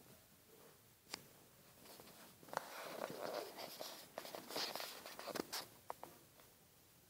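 Soft rustling and scraping with scattered sharp clicks. There is one click about a second in, a few seconds of rustling in the middle, and two more clicks near the end.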